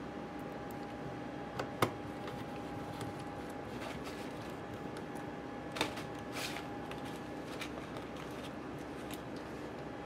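A few small clicks and taps from hands working parts inside an open iBook G4 laptop's chassis, a sharp one about two seconds in and more around six seconds in, over a steady faint hum.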